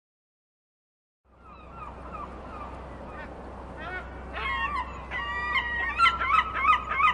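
A flock of waterfowl honking and calling. It starts a little over a second in and grows louder and busier, with many overlapping calls in the last few seconds, over a low steady rumble.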